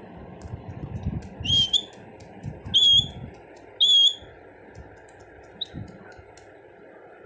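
Pet parrot giving three short, shrill whistled calls about a second apart, with a fainter fourth call a little later.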